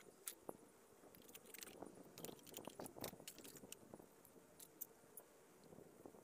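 Faint, scattered clicks and light knocks of plywood caddy parts and hand tools being handled and set in place.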